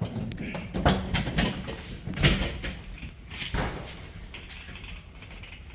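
Several sharp knocks and clatters, about four spread over a few seconds, over a low rumble.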